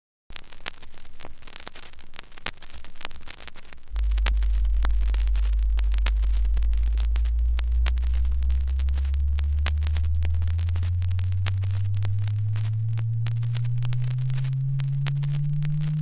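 A loud low hum begins about four seconds in and rises slowly and steadily in pitch, like something spinning up, over a layer of scattered crackling clicks.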